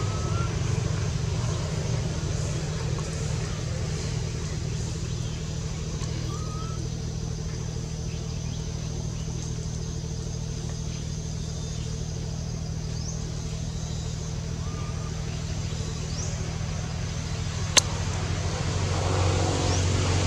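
A steady low engine hum runs throughout, with a few faint short chirps and one sharp click near the end.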